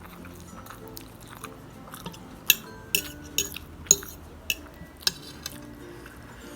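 Cutlery clinking against a dish as instant noodles are eaten: a series of about six sharp clinks between roughly two and a half and five seconds in, over quiet background music.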